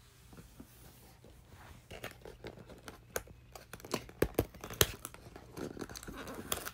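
Cardboard door of an advent calendar being pried and torn open by hand: a run of dry clicks and paper scrapes that gets busier about two seconds in, with two sharper snaps a little past the middle.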